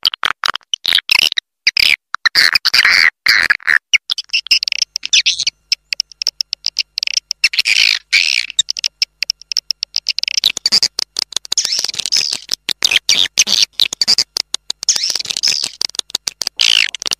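Swiftlet call lure: dense, high-pitched twittering chirps of swiftlets interlaced with rapid clicks, played to attract swiftlets to a nesting house.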